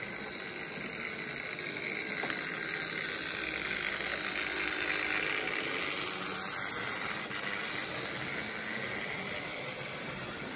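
Märklin H0 model train, a BR 212 diesel locomotive with passenger coaches, running close past on metal track: a steady whirr of motor and wheels that grows louder towards the middle and then eases off, with a few sharp clicks.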